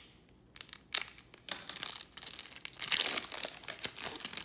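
Crinkling and rustling of trading-card packs and cards being handled, with many quick clicks. It starts about half a second in and is busiest near the middle.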